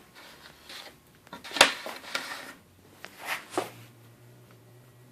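Handling noises: rustling with a sharp knock about a second and a half in and another about three and a half seconds in. After the second knock a faint steady low hum sets in.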